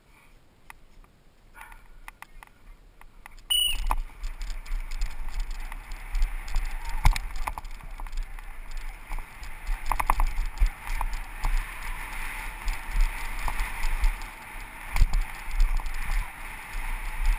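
Downhill mountain bike descending a dirt trail, heard from a helmet camera: a rush of wind on the microphone with tyres on dirt and the bike rattling, and frequent sharp knocks over bumps. The first few seconds are quieter with scattered clicks, then a brief high tone about three and a half seconds in as the rush and knocking begin.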